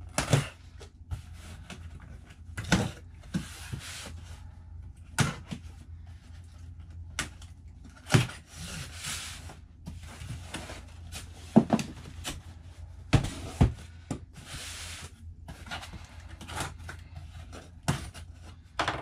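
Long cardboard shipping box being shifted and turned on a workbench: scattered knocks and thumps of the box against the bench, with several second-long stretches of cardboard scraping and rubbing, over a steady low hum.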